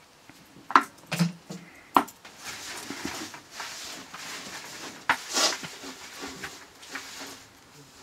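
Metal tongs knock sharply against a plastic bucket three times in the first two seconds. Then come several seconds of rustling and scraping as nettle leaves are pushed out of the tilted plastic bucket, loudest about five seconds in.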